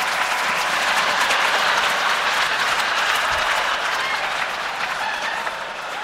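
Audience applauding after a comedy punchline, a dense even clatter of clapping that slowly dies down toward the end.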